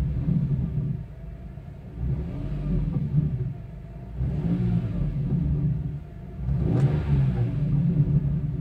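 BMW E46 M3's straight-six engine revved in about four short surges, each dropping back toward idle, with a grinding rattle in the exhaust. The owner traced the rattle to a catalytic converter element broken loose inside one of the original headers, vibrating in the low-speed exhaust flow.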